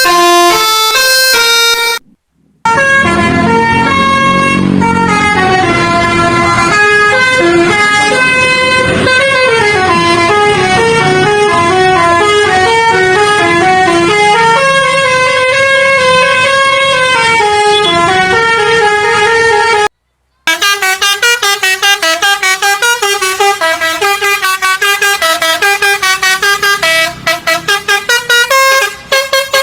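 Indonesian 'telolet basuri' multi-tone bus horn playing a melody of quick stepped notes. It cuts out completely twice, about two seconds in and about twenty seconds in, and turns to short clipped notes near the end.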